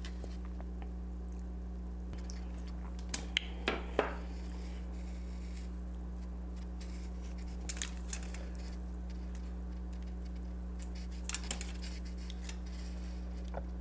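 Fingers pulling apart a cooked, seasoned lobster tail and handling it over a sauce bowl make a few short, moist crackles and clicks: a cluster a few seconds in, one around the middle, and more near the end. A steady low electrical hum runs beneath them.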